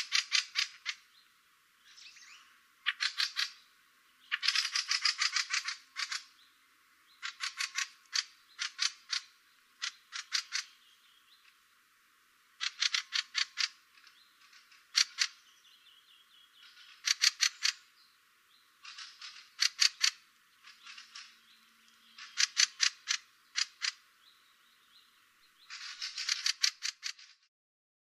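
Fieldfares giving their annoyed-sounding chack-chack-chack calls: quick rattling runs of several harsh notes, repeated every second or two.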